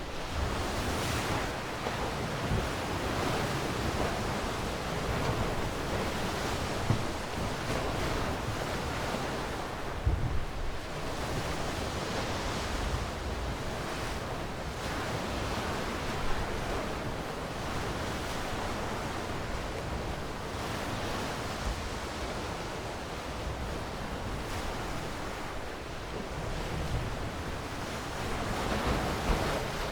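Sea waves breaking and washing ashore: a steady rush of surf that swells and eases every few seconds.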